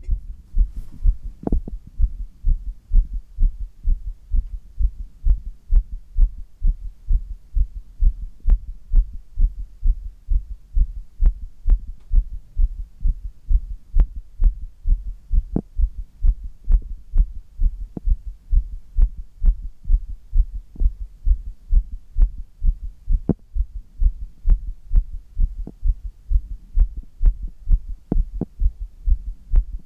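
A man's heartbeat heard close up, beating fast and strong after handstand push-ups, with a few faint sharp clicks over the steady thumping.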